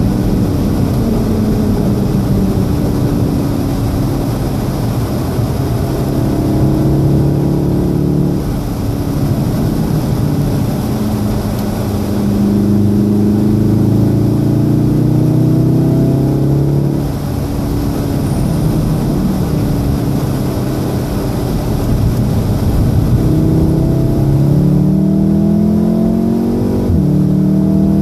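Golf VII R's turbocharged four-cylinder engine heard from inside the cabin at track speed on a wet road. The engine note sinks as the car slows for a corner, then climbs under acceleration, dropping sharply in pitch at gear changes near the middle and near the end. Steady tyre and road noise lies underneath.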